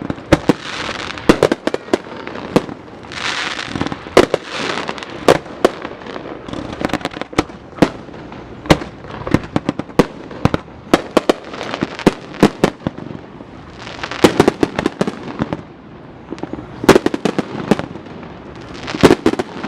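Fireworks going off: many sharp bangs and pops at irregular intervals, several of them very loud, with stretches of hissing crackle between them.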